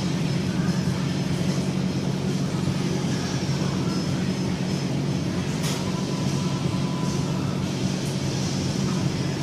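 Steady low mechanical hum, with a faint clink of the loaded barbell's plates about halfway through.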